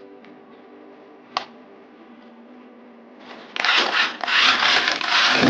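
A single click, then from about three seconds in, loud rubbing and scraping from the toy car being handled.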